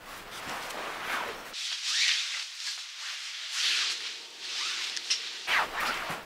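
Rustling and scraping of someone crawling slowly across cardboard sheets on the floor. For about four seconds in the middle the sound turns thin, with its low end gone, as if heard over a phone line.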